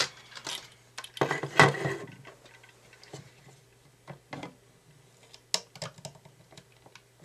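Plastic parts of a toy remote-control car being handled during disassembly: scattered clicks and taps, with a louder rustling scrape about a second and a half in.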